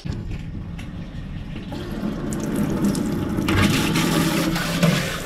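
Water from a hand-held shower head spraying into an empty plastic toilet cistern and splashing on its floor, rinsing it out. The spray grows into a loud, full hiss about three and a half seconds in.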